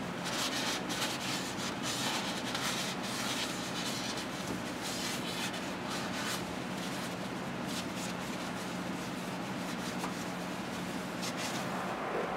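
A rag rubbing and wiping the oil filter mounting flange on the engine, in irregular scratchy strokes that come thickest in the first few seconds and again around the middle, over a steady low hum.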